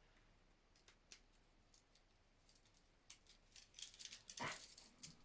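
Faint small metallic clicks and scrapes of a key working a handcuff lock: a few isolated ticks at first, then a busier run of clicks, loudest about four and a half seconds in.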